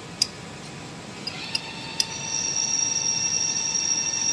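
A few light metallic clicks, then a steady high-pitched machine whine that starts about two seconds in and holds.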